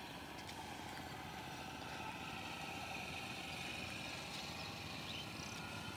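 A steady engine-like drone with a faint whine in it, a little louder in the middle, over a low noisy background.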